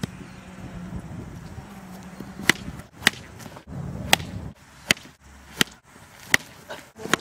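A cricket ball knocking against a wooden cricket bat: a series of about seven sharp knocks, spaced a little under a second apart, starting about two and a half seconds in.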